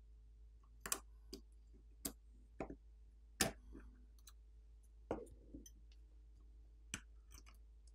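Scattered light clicks and ticks of a precision screwdriver and metal tool against a smartphone's screw, subboard and frame, as the screw holding the subboard is undone and the board is worked loose. About seven irregular clicks, the one about five seconds in followed by a short scrape.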